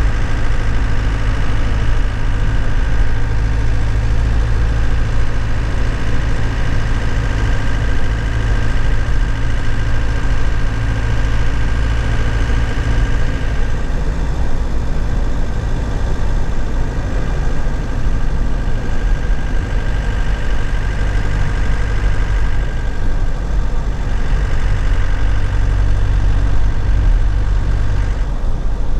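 2001 Nissan Cabstar truck's engine running steadily, heard from inside the cab. Its note changes about halfway through and again near the end.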